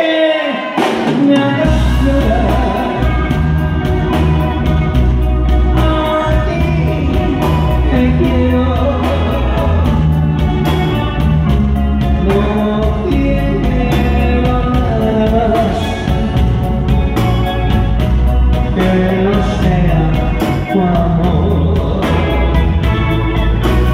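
A live grupera band plays while a man sings lead into a microphone. Bass and drums come in about a second and a half in, under a steady beat of cymbal ticks.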